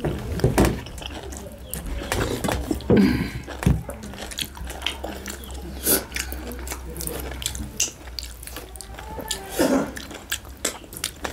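Eating sounds: wet chewing and lip smacking with many short clicks, and fingers mixing rice and curry on a brass plate.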